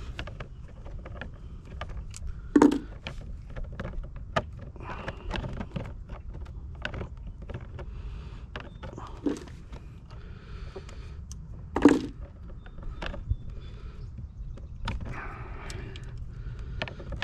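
Hand-tool and wire handling: a green insulated ground wire being worked with wire strippers, giving many small clicks and ticks and two louder sharp knocks, about two and a half seconds in and again near twelve seconds, over a steady low rumble.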